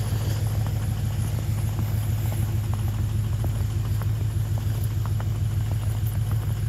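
Lincoln Navigator's V8 engine idling steadily on a cold start in the snow, left running to defrost, with faint crunching footsteps in snow over it.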